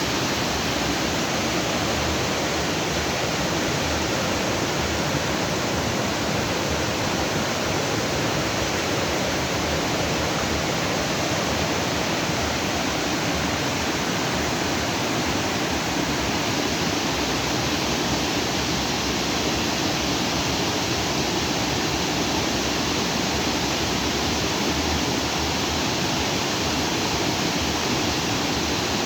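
Stream water rushing steadily over and between rocks, an even rushing that holds level with no breaks.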